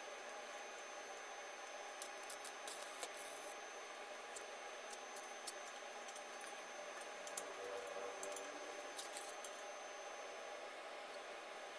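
Scattered light metallic clicks and taps as a thin steel rod is handled and fitted against the steel legs of a wheel-rim grill stand, over a steady background hiss.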